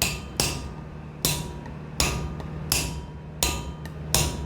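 Hammer blows, about seven evenly spaced sharp metallic knocks, roughly one every 0.7 s, driving a new bearing into its seat in an Electrolux washing machine. A steady low hum runs underneath.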